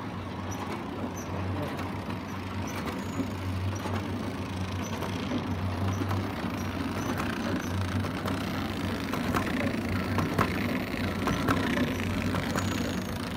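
Automatic biscuit pouch packing machine running: a steady motor hum with light mechanical clicks from the wrapping mechanism, the clicks more frequent in the last few seconds.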